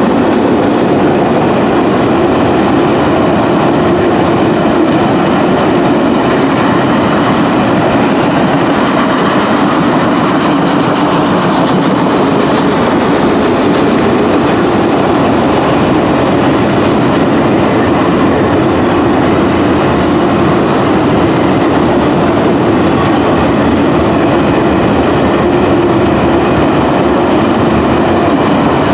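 Freight train of autorack cars rolling past: a loud, steady rumble of steel wheels on rail, with no breaks or sudden events.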